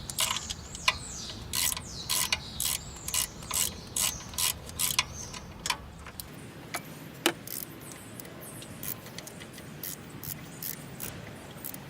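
Hand socket ratchet clicking in short runs as an exhaust manifold bolt is run down through a universal joint, snugging it before final torque. The clicking is busiest in the first half and thins to scattered clicks after about six seconds.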